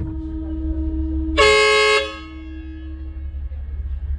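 Train horn sounding one short blast, about half a second long, a little over a second in, over a steady low rumble.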